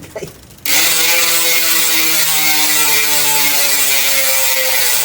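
Speedone Sniper V3 rear hub freewheeling: its ratchet gives a loud, continuous buzz that starts less than a second in, its pitch sinking slowly as the wheel coasts. The hub sits in a thin blow-molded 6061 aluminium frame, which echoes the hub sound and makes it louder.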